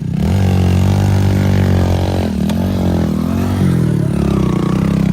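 Heavy diesel machine engine running hard as it is driven up a slope. Its pitch dips and recovers a couple of times in the middle, then holds steady again.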